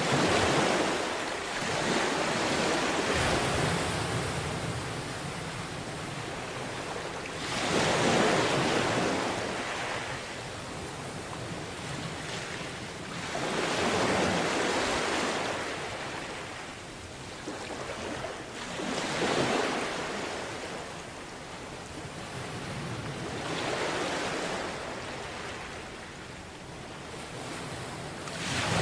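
Sea waves washing onto a beach, the surf swelling and fading about every five to six seconds.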